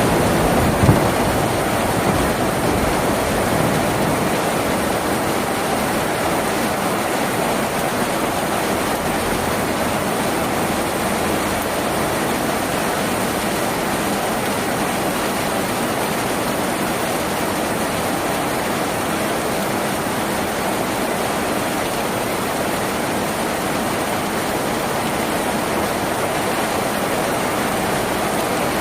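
Steady heavy rain drumming on a tin roof, an even dense hiss, with a brief low thump about a second in.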